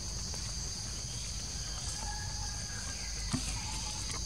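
Steady, high-pitched drone of an insect chorus over a low rumble, with one sharp click about three seconds in.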